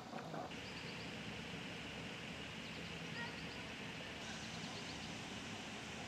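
Outdoor ambience: a steady, quiet background hiss and low hum, with faint groups of quick, high chirps recurring every second or so. The background shifts abruptly about half a second in and again near the four-second mark.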